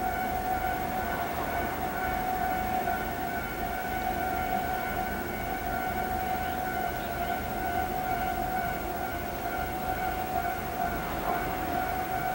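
Japanese railway level-crossing alarm ringing steadily with its electronic two-tone clang, the warning that a train is approaching.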